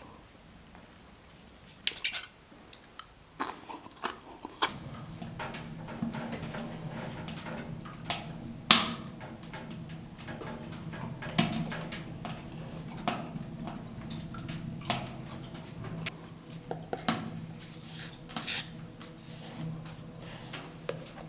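Metal cookware and utensils clinking and scraping, with sharp metallic clinks about two seconds in and again near nine seconds, and a steady low hum coming in about five seconds in.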